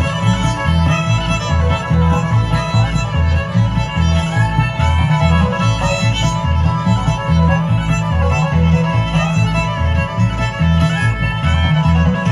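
Bluegrass string band playing live, with the fiddle to the fore over guitar and a steady bass beat of about two pulses a second.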